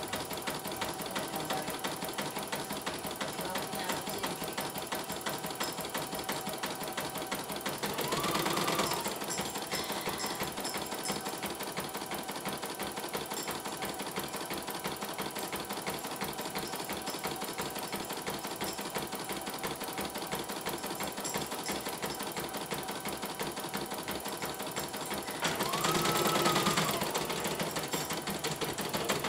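CNY E900 portable embroidery machine stitching a design, its needle going in a rapid, even clatter; the machine is running smoothly after a mainboard replacement. Twice, about a third of the way in and near the end, a louder whine rises and falls over the stitching.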